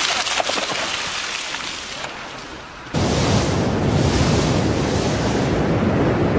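A rushing hiss of a mudslide fades, then about three seconds in a louder, deeper steady roar begins: a lahar, a volcanic mudflow of water and debris, pouring down a valley.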